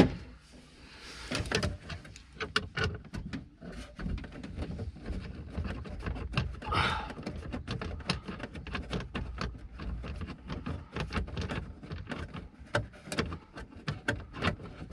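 Irregular small clicks, knocks and scrapes of a hand working a fastener loose behind the plastic boot-side trim panel of a 2003 Volvo XC90, to free the rear light unit. A short, louder scrape comes about seven seconds in.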